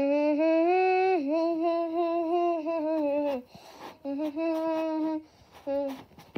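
A voice humming a tune in long held notes: one of about three seconds, then a shorter one, then a brief one near the end.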